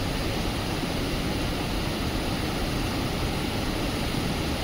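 Water rushing through the opened gates of a full dam, a steady unbroken rush.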